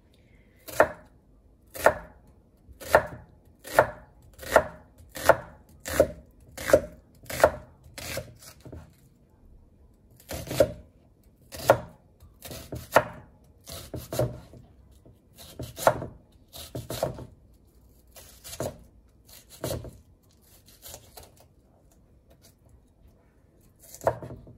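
Kitchen knife slicing an onion into thin strips on a wooden cutting board, each cut ending in a knock of the blade on the board. The strokes come regularly at first and quicken, then turn slower and uneven, growing fainter near the end.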